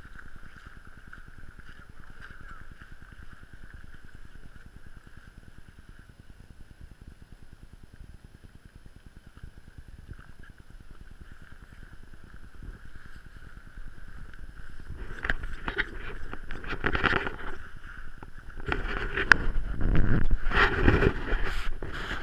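Faint steady outdoor hiss, then from about two-thirds of the way in, loud irregular rubbing, crackling and knocking on the microphone as the camera is handled and moved, ending set down at ice level.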